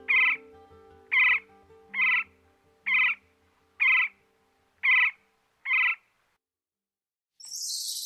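Pileated woodpecker giving seven loud single calls, about one a second, over soft background music that fades away. Near the end comes a short burst of hiss.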